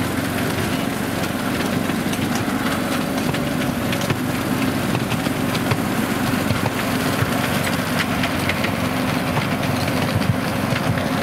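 Miniature railway train on the move: the small engine of the locomotive runs steadily, with frequent sharp clicks from the wheels on the track.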